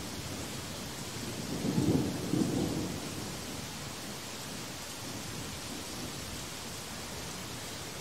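Steady rain falling, with a low crackling rumble of thunder that swells about a second and a half in and fades out by three seconds.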